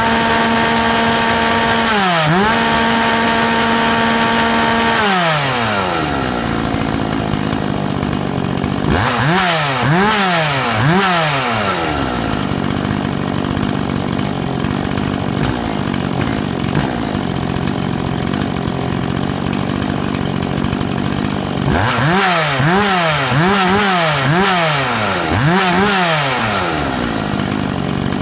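Dolmar 5105 two-stroke chainsaw engine held at full throttle, about 9,400 rpm, for roughly five seconds, then dropping to a steady idle near 3,000 rpm. The throttle is blipped a few times around ten seconds in and repeatedly over the last six seconds, the pitch rising and falling with each blip.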